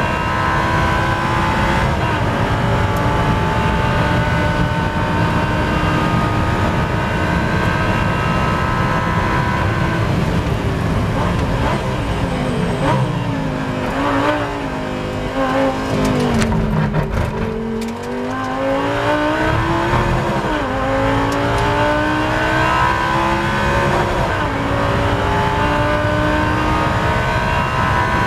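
Lamborghini Super Trofeo race car's V10 heard from inside the cockpit at racing speed. It pulls hard with the pitch rising slowly, then the car brakes hard for a corner around the middle, dropping through the gears with quick throttle blips. After that it accelerates out again, the pitch climbing through a couple of upshifts.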